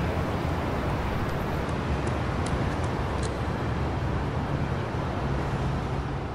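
Steady road-traffic noise with a low engine hum underneath and a few faint ticks about two to three seconds in.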